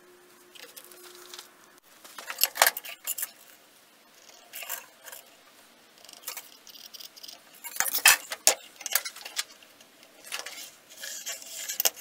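Clicks and knocks of small steel parts and tools handled on a granite surface plate, the loudest knock about eight seconds in. Near the end comes a scratchy rasp as a height-gauge scribe marks lines on the layout-dyed steel guard stock.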